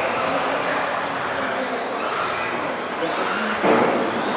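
Several electric RC off-road race cars running, their motors whining up and down in pitch as they accelerate and brake. A sharp knock about three and a half seconds in.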